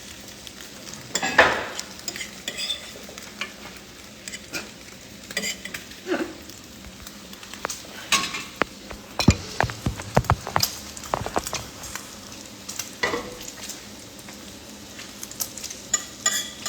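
Eggs and bacon sizzling in a frying pan, while a utensil scrapes and knocks against the pan in short clicks, with a busier flurry of knocks midway.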